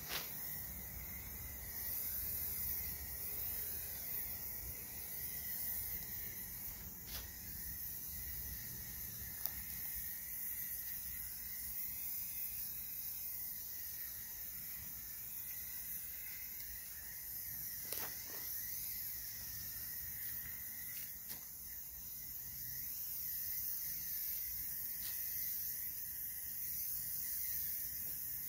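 Aerosol spray-paint can (Krylon ColorMax paint and primer) hissing steadily as it is sprayed through a clip-on trigger handle, with a couple of faint clicks.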